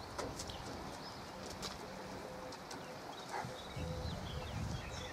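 A pigeon cooing, low and soft, about four seconds in, over a few faint scattered ticks.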